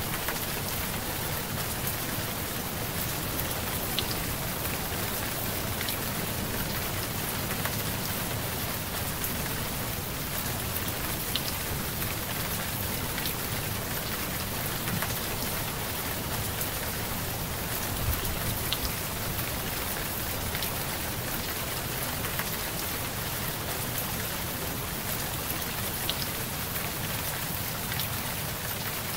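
Steady rain, an even hiss with a few sharper drop ticks scattered through it.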